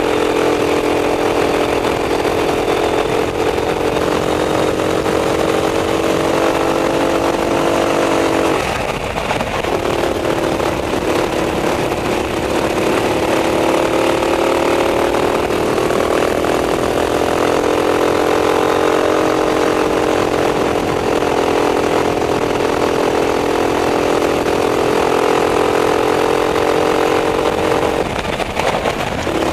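Racing kart engine at high revs, heard from on board. Its pitch climbs steadily, falls sharply about eight seconds in, then climbs again, with another drop just before the end.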